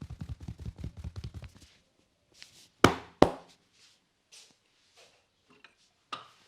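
Fast hand strikes of a percussive head massage, about ten a second, stopping nearly two seconds in. About a second later come two loud, sharp cracks close together, followed by faint taps and rustles.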